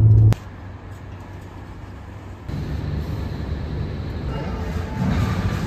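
A steady low rumble that cuts off abruptly just after the start, continues quieter, and comes back louder about halfway through.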